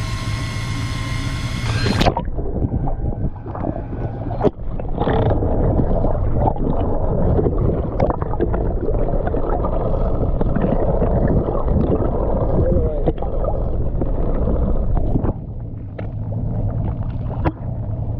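A steady motor hum with a whine cuts off about two seconds in and gives way to the muffled rumbling and rushing of water heard through a camera underwater, with scattered knocks. Near the end a lower steady hum returns.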